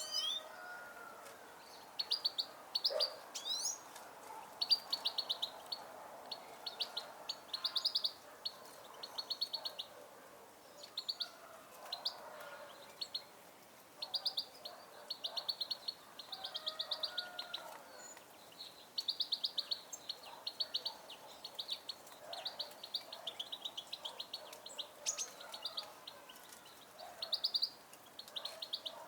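Small songbirds chirping: run after run of rapid, high, short chirps, many strokes a second, repeating with brief gaps between runs.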